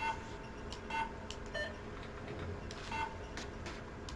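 Short electronic beeps from a 3D digitizing probe, each one signalling that a point on the surface has been recorded. They come about once a second, at the start, about a second in and about three seconds in, with faint clicks between them over a low hum.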